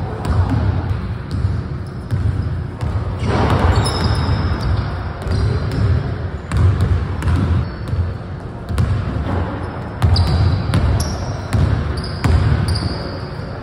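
A basketball bouncing repeatedly on a hardwood court floor in uneven thumps as it is dribbled and played, with short high squeaks of sneakers on the floor.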